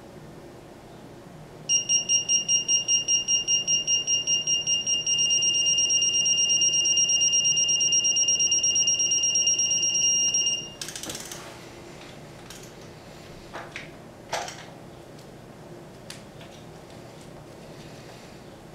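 Digital torque wrench beeping while a bolt is tightened: a quick run of high beeps, about four or five a second, turns into one steady tone, the signal that the set torque is being approached and then reached, and stops about ten seconds in. A few light metal clinks of tools follow.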